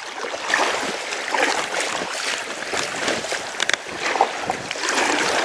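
Choppy lake water splashing and lapping against an inflatable kayak while it is paddled, with irregular splashes from the paddle blades dipping in.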